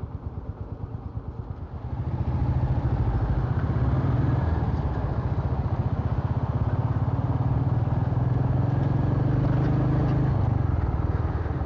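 Royal Enfield Meteor 350's single-cylinder engine, first ticking over with an uneven low thump, then louder at about two seconds and running steadily under way, easing off near the end.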